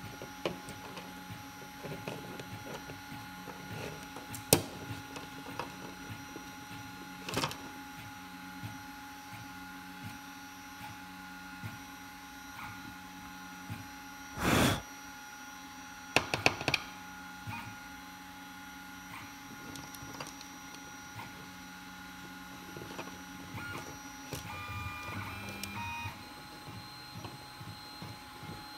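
Small plastic parts of a 3D printing pen being handled: scattered clicks and taps, with one louder scuff about halfway through and a few quick clicks just after it, over a steady background hum.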